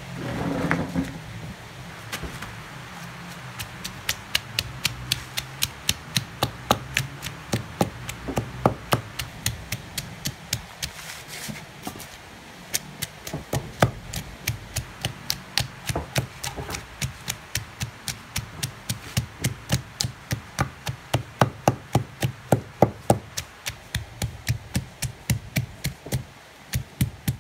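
Wooden pestle pounding a spice paste of candlenuts, garlic, ginger and chilies in a stone mortar: a steady run of sharp knocks, about three a second, starting about two seconds in.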